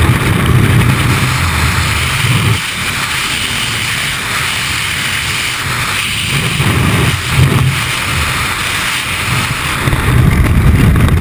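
Freefall wind rushing over a helmet-mounted camera's microphone, a loud rushing with low buffeting rumble. The rumble eases about two and a half seconds in and builds again near the end.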